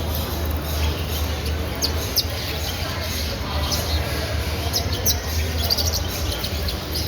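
Small cage birds chirping, with many short high chirps scattered throughout, over the chatter of people nearby.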